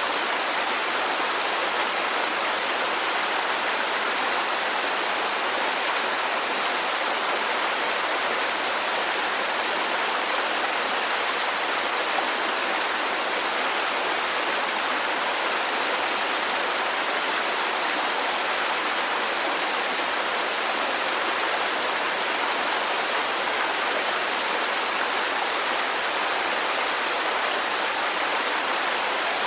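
Garden water fountain, water splashing and trickling without a break at an even level.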